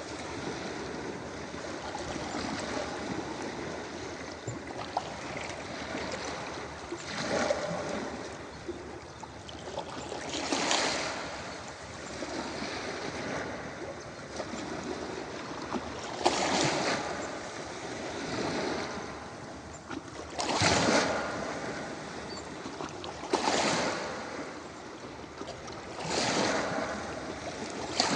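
Ocean waves breaking on a beach: a steady wash of surf, with a louder wave crashing and rushing up every few seconds.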